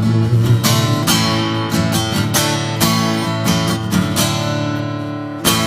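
Instrumental ending of a live song: strummed guitar chords, with one last hard strum near the end left ringing.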